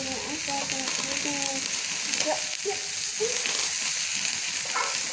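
Chicken satay sizzling on a grill pan over a portable gas stove, a steady hiss. A voice murmurs faintly in the first second or so.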